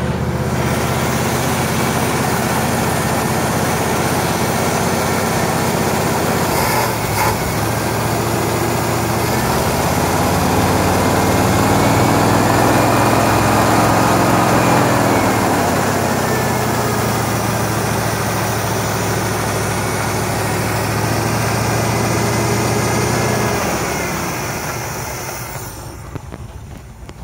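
International Harvester Scout engine running steadily, speeding up in the middle and settling back down. Near the end the engine sound dies away.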